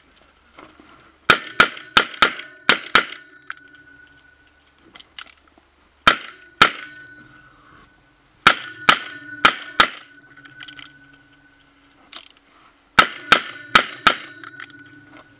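Smith & Wesson 610 revolver firing in rapid strings: about six quick shots, a pause of roughly three seconds, then two, then five, then four more, each string a fast run of sharp cracks.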